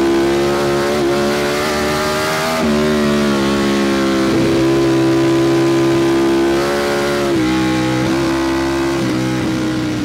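Ducati Panigale V4 SP2's V4 engine through an Akrapovic slip-on exhaust, pulling under throttle. The revs climb, drop sharply at an upshift about two and a half seconds in and again about seven seconds in, then climb again after each.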